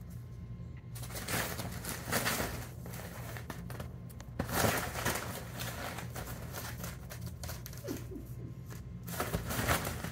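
A fabric pop-up cat tunnel rustling and crinkling as a kitten scrambles inside it, in three spells of movement.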